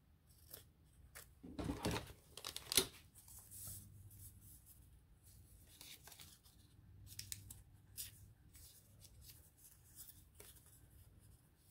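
Faint paper handling: a folded sheet being creased and turned by hand, with scattered soft rustles and swishes, the loudest about two to three seconds in.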